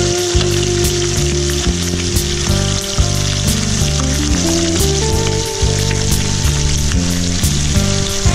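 Whole fish shallow-frying in hot oil in a pan, giving a steady sizzle over medium heat as the flesh browns. Background music with a repeating bass line plays over it.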